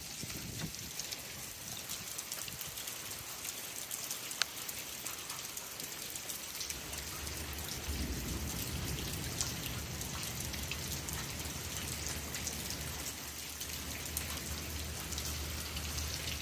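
Rain falling steadily as a hailstorm dies down, with scattered sharp drop ticks. A low rumble comes in about seven seconds in and holds.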